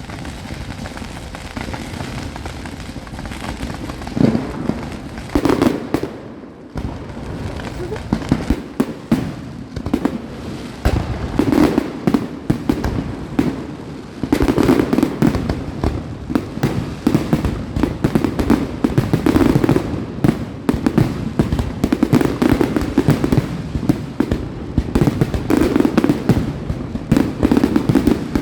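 Fireworks display: bangs and crackling bursts going off in quick succession, growing denser and nearly continuous from about eight seconds in.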